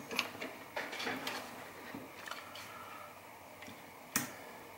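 Scattered small clicks and taps from a handheld digital multimeter being set down and its rotary range dial turned, with one sharp click about four seconds in.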